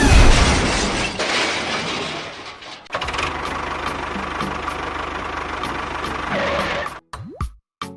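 A small motor running steadily, after a loud noisy rush in the first few seconds; near the end it cuts off suddenly and short rising whooshes follow.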